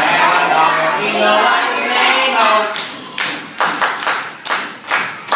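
A class of children chanting together in unison, then about halfway through breaking into clapping in time together, a steady rhythm of about two claps a second.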